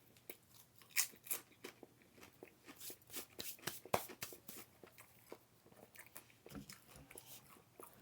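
A person chewing and crunching food, with many quick, irregular crunches; the loudest come about a second in and about four seconds in.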